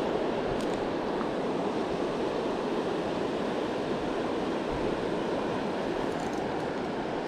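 Steady, even rush of a fast-flowing river current.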